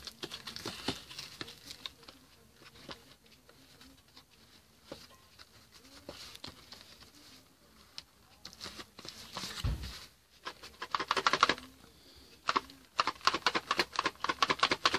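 Packaging being handled and opened by hand: scattered clicks, rustling and crinkling, with one dull thump about two thirds of the way through and busier rustling near the end.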